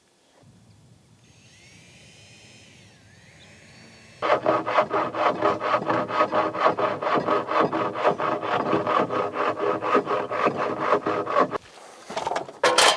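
Handsaw cutting through a wooden board with fast, rhythmic strokes, starting about four seconds in and stopping shortly before the end, then a sharp knock. Faint birdsong before the sawing starts.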